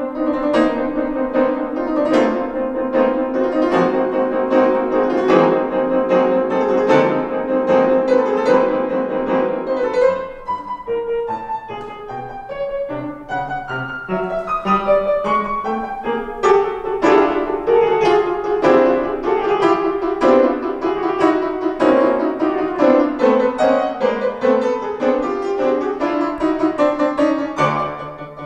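Piano four hands on a grand piano, two players at one keyboard playing classical music. A dense, busy passage thins out and drops in level about ten seconds in, then builds up again.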